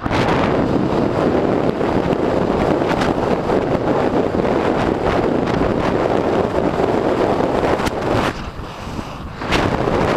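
Wind noise on the microphone of an electric bike moving at speed: a loud, steady rush that eases for about a second near eight seconds in, then comes back.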